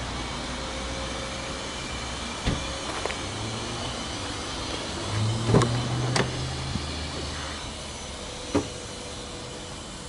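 A few sharp knocks and clicks as a car's driver door is handled and opened, over a steady low hum.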